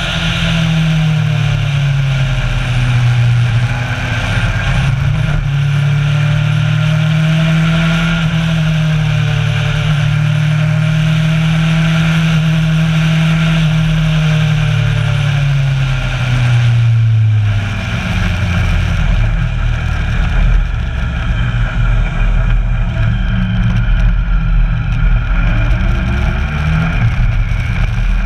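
Kawasaki Versys 1000's inline-four engine running while riding, over a steady rush of wind and road noise. The engine note wavers a little in pitch, then drops lower about two-thirds of the way through and stays lower.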